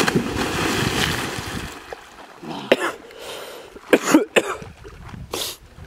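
A person jumping into a river: a sudden loud splash as the body hits the water, lasting about a second and a half, then several short sharp sounds over the next few seconds.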